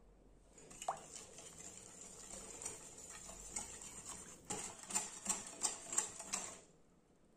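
Wire balloon whisk beating egg, sugar and oil in a glass bowl: a swishing with the wires clicking against the glass. Over the last couple of seconds the clicks come sharper and regular, about three a second, then it stops about a second before the end.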